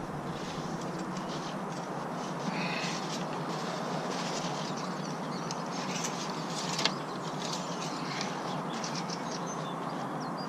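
Steady outdoor background hiss with a few faint bird chirps, and a single sharp click about two-thirds of the way in.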